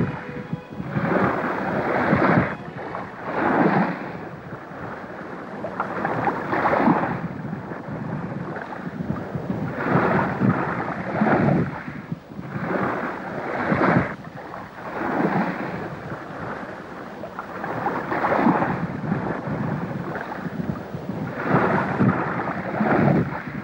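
Rushing surf noise that swells and fades every second or two, without let-up.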